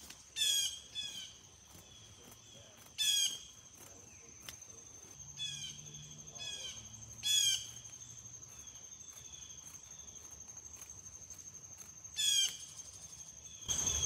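Insects trilling on one steady high note, with about eight short, descending chirps scattered over it; the loudest come about three, seven and twelve seconds in.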